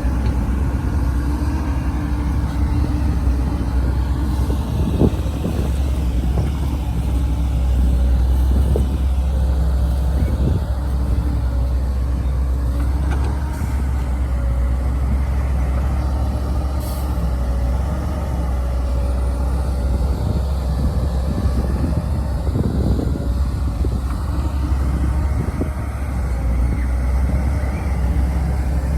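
Heavy diesel machinery at work: an excavator digging and loading dirt into a truck. Its engine runs steadily as a low drone, with occasional clanks.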